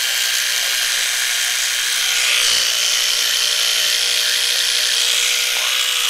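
Electric toothbrush brushing teeth: a steady motor buzz with scrubbing noise over it, running without a break.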